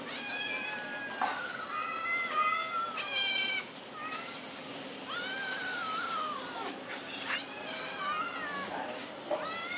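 Several cats meowing over and over, their rising and falling calls sometimes overlapping: hungry cats begging to be fed.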